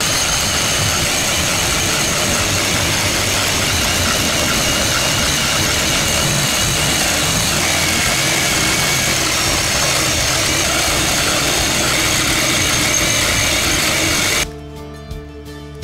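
Electric power tool motor running steadily, with a high whine over the noise, stopping abruptly near the end.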